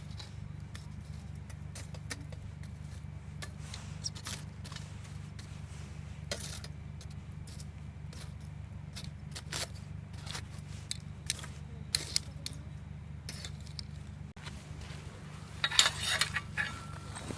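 Scattered sharp clicks and light metallic clinks of camping gear being handled, with a quick flurry of clinking near the end, over a steady low hum.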